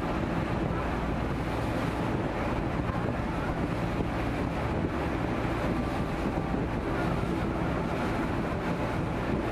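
Passenger ferry under way at speed: a steady engine hum under rushing water from the wash along the hull, with wind buffeting the microphone.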